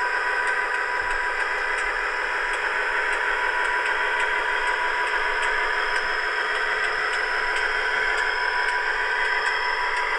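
Sound decoder in a Dapol OO gauge Class 59 model locomotive playing its diesel engine sound through the model's tiny speaker as it runs, thin and without bass, with faint regular ticking and a slight rise in pitch near the end.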